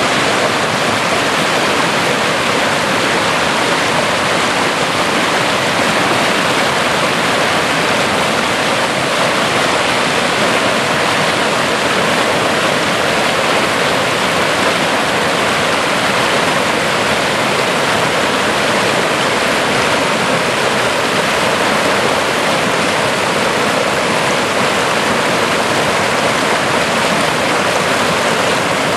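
Swift stream running high after rain, white water rushing and splashing over granite boulders in a steady, loud roar of water.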